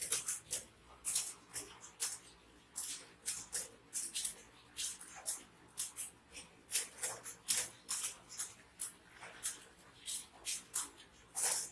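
Many computer keyboards being typed on at once, a dense, irregular stream of sharp key clicks.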